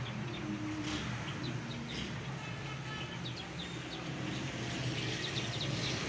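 A flock of Java sparrows chirping: scattered short, high chirps that come thicker near the end, over a steady low hum.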